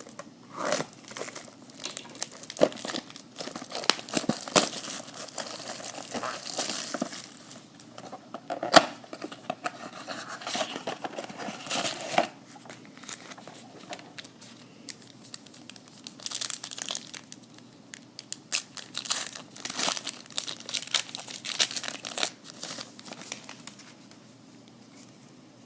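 Wrapping on a blaster box of baseball trading cards being torn open: crinkling and tearing in irregular bursts, with one sharp snap about nine seconds in.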